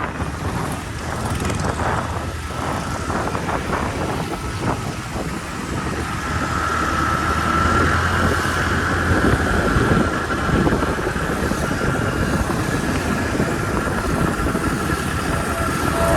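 Steady vehicle running noise, with a low hum and a whine that swells and grows louder about halfway through.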